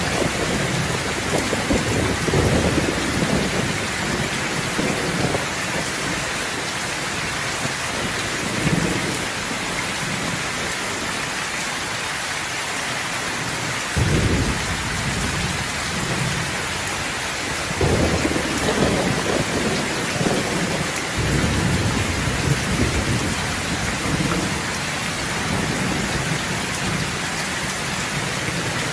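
Steady rain with rolls of thunder rumbling underneath. One clap starts suddenly about halfway through, and longer stretches of rumbling follow in the second half.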